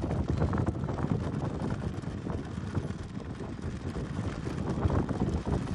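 Strong wind buffeting the microphone, a rumbling noise that rises and falls with the gusts.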